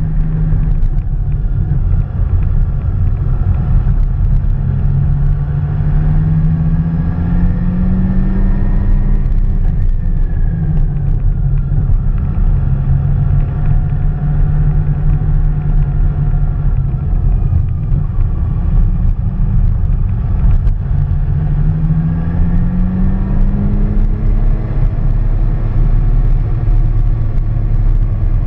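Motorcycle engine running as it rides a winding lane, over a heavy low rumble. The revs climb over several seconds, drop about ten seconds in, then climb again near the end.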